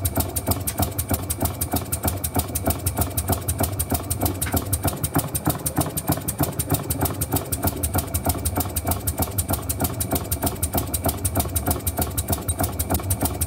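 Small single-cylinder model oscillating engine running on compressed air at a steady speed, its exhaust puffing in a rapid, even rhythm.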